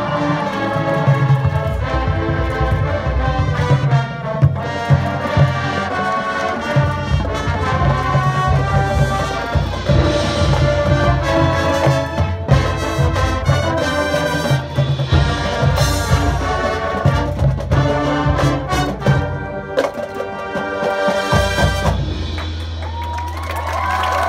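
Marching band playing with brass (trumpets and trombones) over steady percussion hits. About 22 seconds in, it settles onto a long held low chord.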